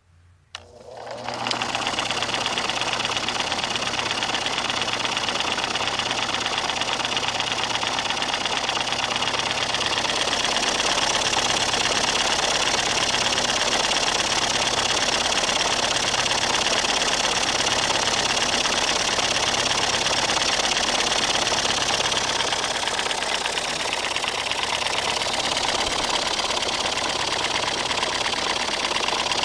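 Electric grinder motor switched on with a click and spinning up within about a second, then belt-driving a single-cylinder overhead-valve engine at about 1000 rpm. The engine is being turned over by the motor, not firing, giving a steady, fast, even mechanical clatter over the motor's run.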